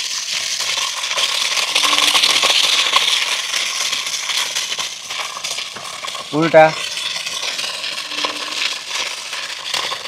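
Electric drive motors and gearboxes of a 1:16 scale 4WD RC car whirring, with a dense rattling and clicking of the wheels and drivetrain as the car spins in place. It is loudest for about two seconds near the start, then runs on more steadily.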